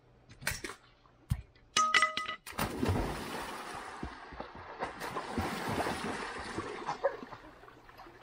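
A person jumping into a swimming pool: a short ringing clink, then a big splash about two and a half seconds in, followed by water sloshing and settling for several seconds.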